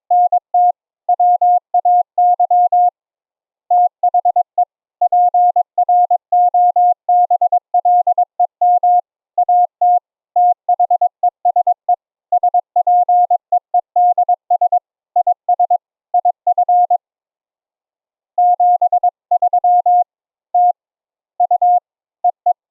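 Morse code (CW) audio: a single steady mid-pitched tone keyed on and off in dots and dashes, passed through the ADPCM audio codec and streamed over IP. The sending breaks off briefly about three seconds in, pauses for over a second near seventeen seconds in, then resumes with a few sparser characters.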